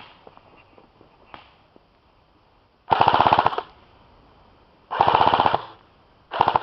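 Airsoft gun firing on full auto in three short bursts, each a fast, even rattle of shots, about two seconds apart. The third burst runs on past the end. A faint single click or two come before the bursts.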